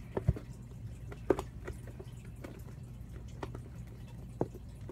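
Glue and dish soap being stirred together in a container to make slime: scattered soft wet squelches and light clicks, over a faint steady low hum.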